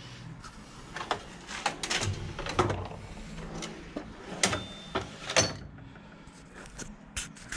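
A scattered series of sharp clicks and knocks, roughly a dozen, over a low steady hum.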